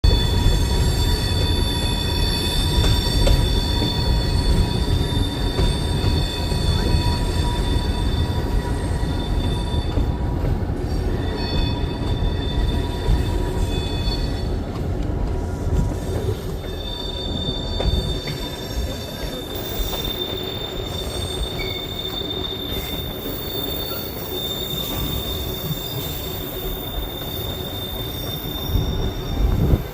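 Train running on the rails: a continuous low rumble with steady high-pitched wheel squeal over it. The rumble eases off in the second half while the squeal carries on.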